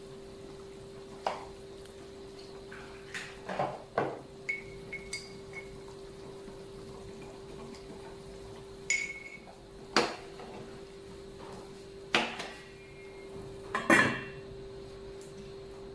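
Kitchenware clinking and knocking: utensils and dishes striking pots and bowls in irregular, scattered hits, a few of which ring briefly. A steady low hum runs underneath.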